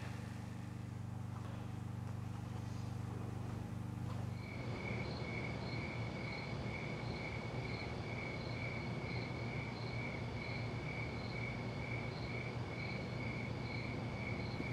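A low steady hum for about the first four seconds, then a cricket chirping in an even rhythm, about two chirps a second, over a low rumble.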